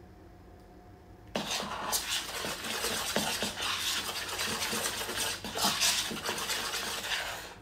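Quiet room tone for about a second and a half, then a metal utensil briskly stirring pancake batter in a bowl, with rapid scraping and clicks against the bowl.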